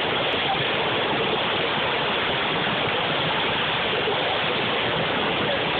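Fast-flowing river water rushing over a standing surf wave: a loud, steady, unbroken rushing noise.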